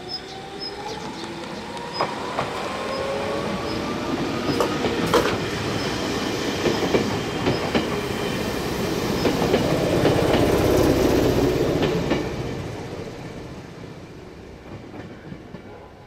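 Nagano Electric Railway 8500 series electric train pulling away and passing close by: its motor whine rises in pitch over the first few seconds, wheels click and knock over the rail joints, and the rumble of the passing cars is loudest about ten seconds in, then fades as the train moves off.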